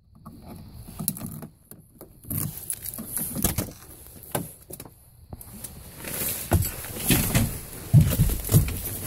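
Irregular footsteps and handling noises, knocks and rattles with keys jangling and a pickup truck's door being opened.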